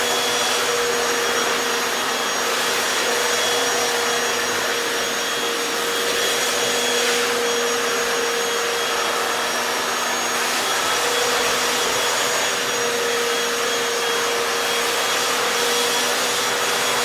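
Hoover FloorMate Deluxe hard-floor wet cleaner running in wash mode, its suction motor and spinning scrub brushes making a steady whine and rush that holds even throughout.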